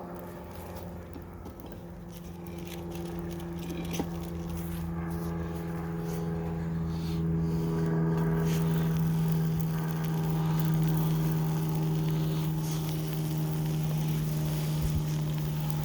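A steady motor-like drone that grows a little louder about halfway through, over faint sizzling of butter-toasted buns on a cast iron griddle.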